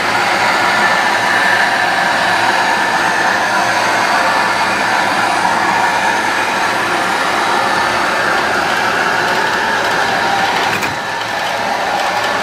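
Model train running along the track and over a model suspension bridge: a steady whir of the locomotive motor and wheels rolling on the rails, dipping briefly near the end.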